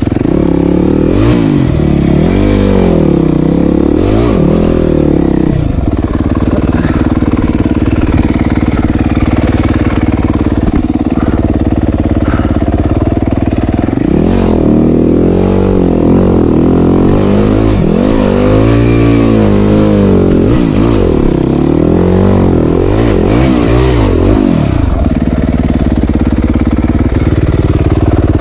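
2015 Yamaha YZ250F's single-cylinder four-stroke engine running under a trail rider, revved up and down in repeated blips while clambering over rocks, with steadier running in between.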